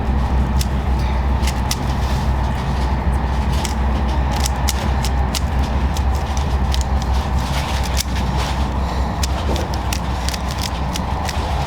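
Rubik's cube being turned rapidly in a speed solve: quick, irregular plastic clicks and snaps, over a steady low rumble.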